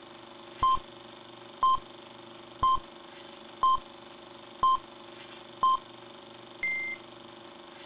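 Film-leader countdown beeps: six short beeps of the same pitch, one a second, then a slightly longer, higher-pitched beep near the end, over a steady hum and hiss.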